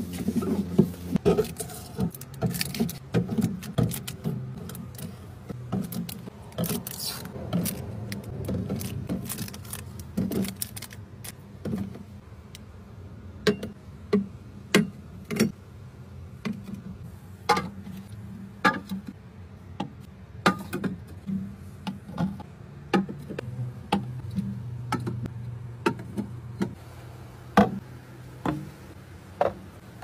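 Fridge being restocked: a paper towel wiping a glass shelf, then glass beer bottles and plastic drink bottles set down on the shelves and in the door with sharp clinks and knocks, about one every second or two, over a low steady hum.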